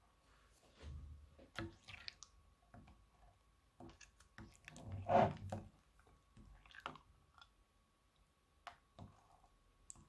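Silicone spatula stirring thick clear slime with small plastic dice in a glass bowl: irregular sticky squelches and clicks, loudest about five seconds in.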